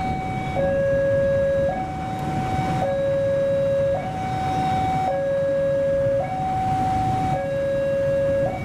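Electronic two-tone warning siren alternating between a higher and a lower note, each held about a second, over a steady low rumble.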